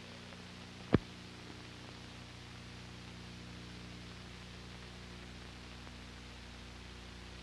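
Steady hiss and electrical hum of an old film soundtrack, with one sharp click about a second in.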